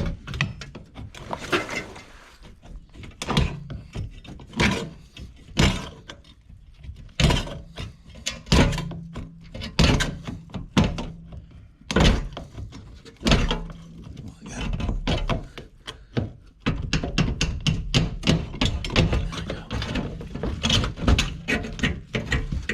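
Hammer blows on wood framing and metal straps, irregular single strikes at first, then a fast run of rapid blows for the last several seconds. A steady low hum sounds under the blows on and off through the second half.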